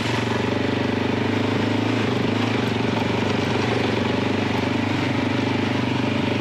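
Motorcycle engine running at a steady pace while the bike is ridden off-road through sand.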